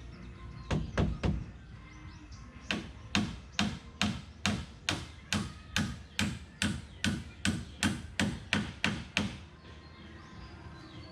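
A hand tool striking wood: three quick blows, then a steady run of about sixteen blows at roughly two and a half a second that stops near the end.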